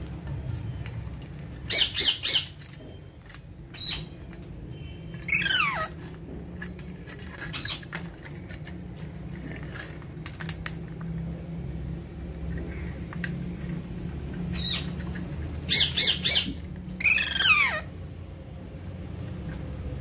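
Alexandrine parakeets squawking: two loud bouts, about two seconds in and again near the end, each a quick run of three harsh calls followed by a longer call that slides down in pitch, with shorter single calls and small clicks between.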